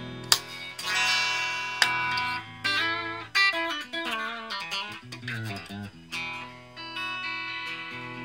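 Electric guitar played through a Raizin Sound "Vintage Champ Box" effects pedal. Two chords are struck in the first two seconds, then a run of single notes with wide vibrato steps downward, and a chord is left ringing near the end.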